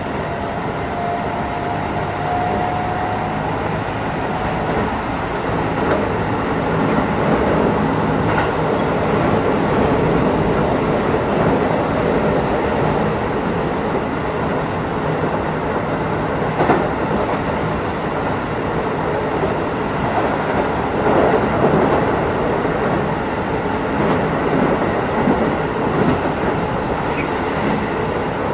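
Keisei 3050-series commuter train heard from inside the car while running: a steady rumble of wheels on rail with a few sharp clacks. A faint whine rises slightly in pitch over the first few seconds.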